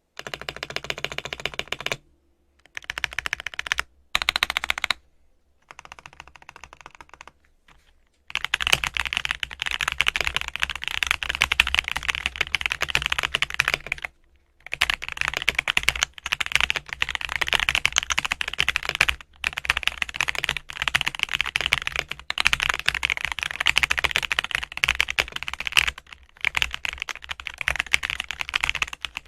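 Typing on an AKKO MOD007 mechanical keyboard with AKKO CS Piano V3 switches: a fast clatter of keystrokes. It comes in short bursts with gaps for about the first eight seconds, then runs almost continuously with a few brief pauses.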